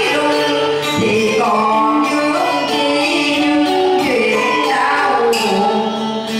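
Group of voices singing a slow song in harmony, with long held notes.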